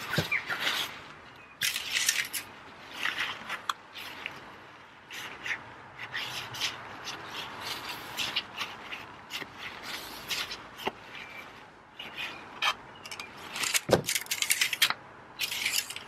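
Paper towel rustling and rubbing as it wipes the oil dipstick, in irregular bursts, with a sharper knock about three quarters of the way through.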